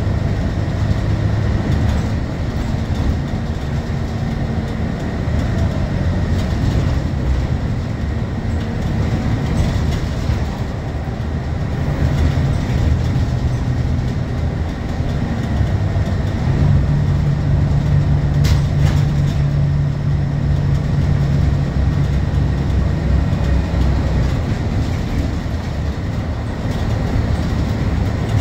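Scania K230UB bus's rear-mounted five-cylinder diesel engine running while the bus drives, heard from the back of the passenger cabin over road and tyre noise. Past the middle the engine note firms up and holds steady for several seconds as it pulls, with one sharp click partway through.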